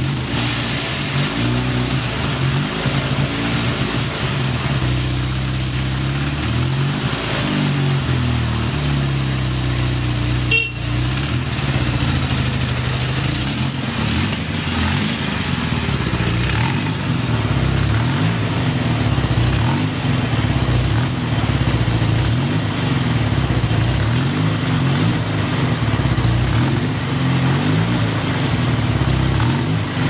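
1973 Yamaha TX750's parallel-twin engine running at a steady idle, its pitch rising and falling now and then as the throttle is eased open and let back. A single sharp click about a third of the way through.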